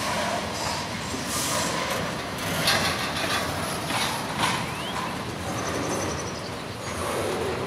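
Steady rumble and rush of a vehicle, with several short hissing bursts in the middle, and a small bird chirping a few times.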